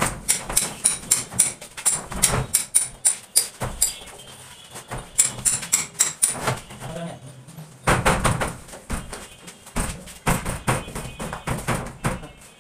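Plastic door panel knocking and clattering against its frame as it is handled and fitted, in quick irregular knocks with a short lull about four seconds in.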